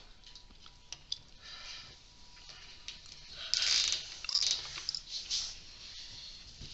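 Small plastic cable ties being worked around coax cable: scattered light clicks and handling, then several short rasping bursts about halfway through as a zip tie is pulled through its ratchet head.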